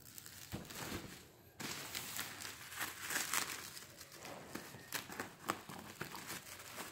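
Plastic bubble wrap around a parcel rustling as it is handled, then cut with scissors near the end, with many short sharp clicks.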